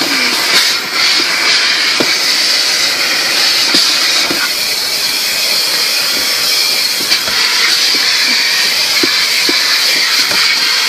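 Steady loud rushing hiss of automatic car wash equipment, heard from inside the car's cabin, with a few faint ticks.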